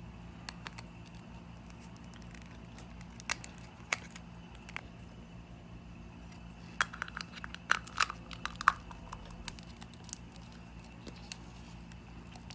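Small plastic capsule-toy figure parts being handled and snapped together: scattered light clicks and taps, with a quicker run of clicks about seven to nine seconds in, over a faint steady hum.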